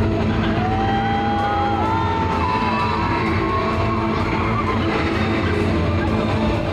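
Loud rock music. A long held lead note steps up in pitch about two seconds in.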